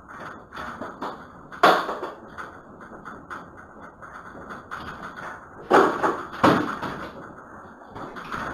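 Shop fittings and objects knocking and rattling as an earthquake shakes the building, heard through a security camera's microphone: sharp knocks about two seconds in and twice around six seconds, with a low rumble building near the end.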